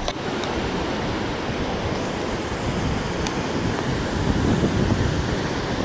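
Sea surf breaking and washing onto the shore, with gusts of wind buffeting the microphone.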